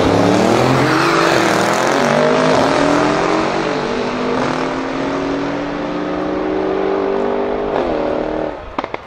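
Porsche 911 Turbo and a Mercedes-AMG E-Class saloon launching side by side from a standing start: loud engine notes climbing in pitch and dropping back at several quick upshifts. The sound falls away suddenly about eight and a half seconds in as the cars pull off down the strip.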